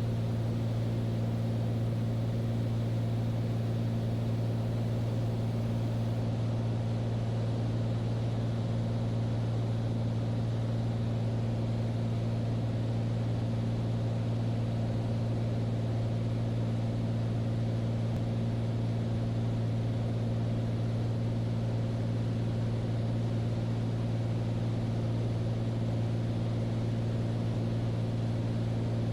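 Steady cabin drone of a Beechcraft Bonanza single-engine piston airplane's engine and propeller, holding an even, unchanging pitch.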